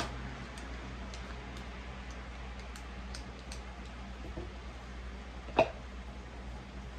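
Wooden spoon and wire whisk working a thick batter in a glass mixing bowl: faint scattered ticks of utensils against the glass, then one sharp knock about five and a half seconds in. A steady hiss sits underneath.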